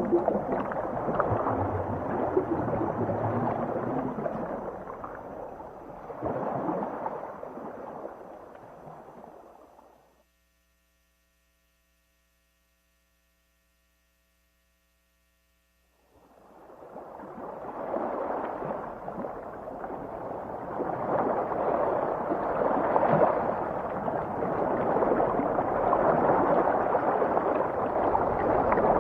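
Underwater ambience: a steady rushing, gurgling wash of noise that fades out to complete silence about ten seconds in, then fades back in about six seconds later.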